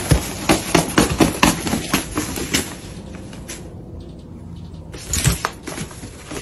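Rapid rustling and scratching of nylon suitcase lining as a Sphynx cat paws and digs at it. It is dense at first, quieter in the middle, and picks up again near the end.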